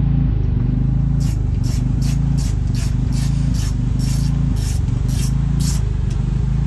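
Ratchet turning a T30 Torx bit to back out a door bolt: about a dozen quick ratcheting strokes at a steady pace, two or three a second, starting about a second in and stopping near the end. A steady low motor-like hum runs underneath.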